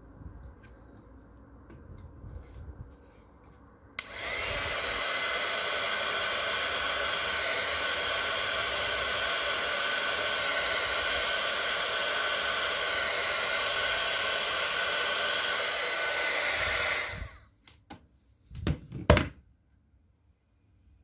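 Small handheld hot-air blower switched on about four seconds in and running steadily with a whining motor for about thirteen seconds, heating a plastic pram brake pin to soften it; then switched off and winding down. A few sharp knocks follow shortly after, the loudest near the end.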